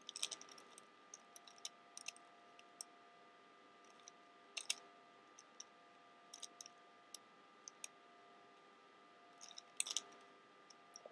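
Plastic Rubik's Cube layers being twisted by hand: faint clicks and clacks in scattered clusters, loudest about four and a half seconds in and again near ten seconds.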